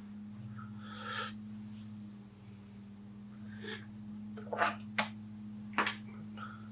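Steady electric hum of a running potter's wheel, with a few short, sharp sounds a little past halfway, the loudest of them just before the end.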